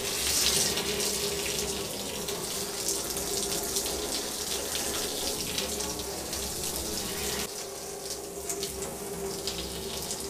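A thin stream of liquid jets from the nozzle of a homemade baking-soda-and-vinegar bottle rocket and splashes steadily into a bathtub, driven out by the gas pressure from the reaction. The rush is strongest about half a second in.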